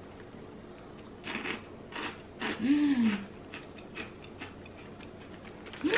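Crunching and chewing a crisp fried rice cracker, a few crackly bites followed by softer chewing, with a short appreciative "mm" hum that rises and falls about two and a half seconds in.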